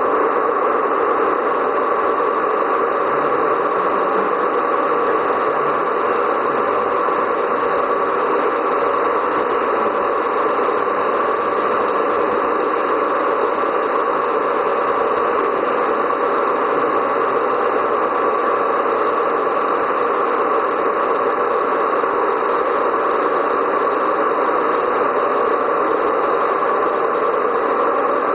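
Simulated diesel engine sound from two Gauge 1 model DB Class 211 diesel locomotives running double-headed, steady and even.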